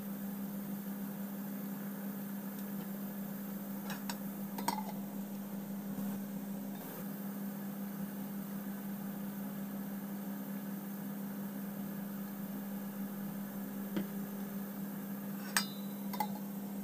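Ladle clinking against a cake tin in a steamer as batter is poured in, then a glass pot lid clinking twice as it is set back on the steamer near the end, over a steady low hum.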